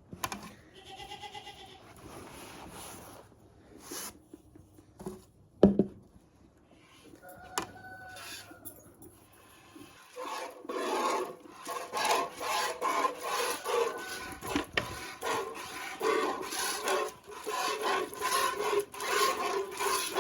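Hand-milking a goat: streams of milk squirt into a metal pail in steady rasping strokes, about two a second, from about halfway through. Before that come scattered knocks, one sharp loud knock and a brief animal call.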